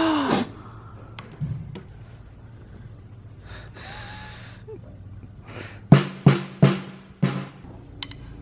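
Drum kit being sound-checked on stage: after a short loud burst at the start, a quiet stretch, then five separate single strikes on a drum, each ringing briefly with a low tone, about six to eight seconds in.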